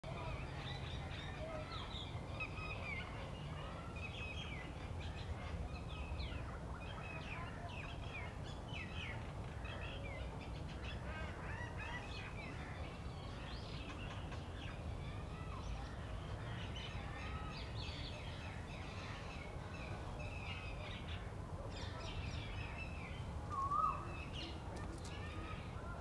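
Many small birds chirping and twittering in a steady background chorus over a low rumble, with one louder, short call near the end.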